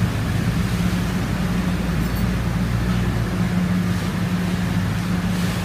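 Lateral-drilling machinery running steadily in a horizontal collector well's caisson: a constant low droning hum with an even rush of noise over it.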